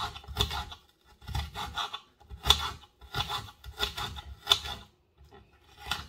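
Kitchen knife chopping a red onion on a glass cutting board: an uneven run of sharp knocks as the blade hits the glass, pausing briefly about five seconds in.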